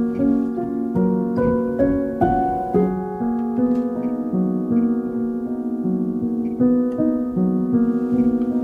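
Calm, slow instrumental music: soft keyboard notes and chords, each held and overlapping the next.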